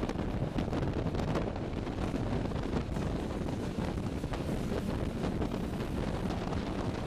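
Wind buffeting the microphone out of the window of a moving ALn 663 diesel railcar, over the steady running rumble of the train on the track.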